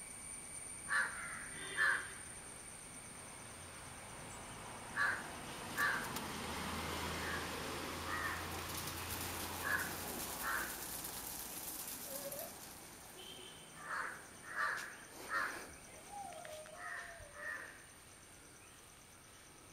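Crows cawing repeatedly: short calls, often in pairs about a second apart. Partway through there are a few seconds of steady hiss.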